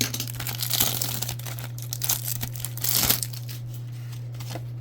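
Trading-card pack wrapper crinkling and tearing as it is opened by hand, with louder bursts near the start and about three seconds in, over a steady low hum.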